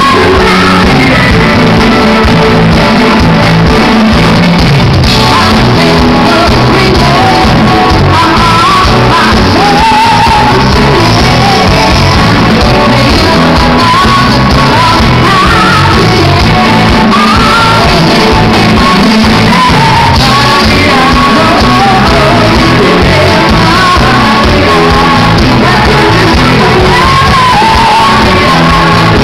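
Loud live band music with a woman singing lead: drums, electric guitar and backing vocals over a steady beat, in a large hall.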